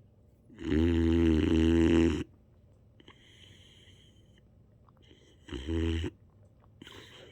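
Boxer puppy snoring loudly in its sleep: one long buzzing snore of about a second and a half, then a shorter one about five and a half seconds in, and a fainter one near the end.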